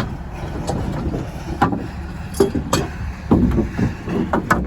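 A vehicle's steady low rumble, with several short sharp knocks and clacks spread through it.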